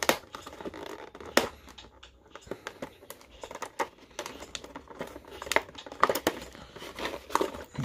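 Clear plastic blister tray of an action-figure package being handled and pried open: irregular crinkles, clicks and sharper snaps of thin plastic.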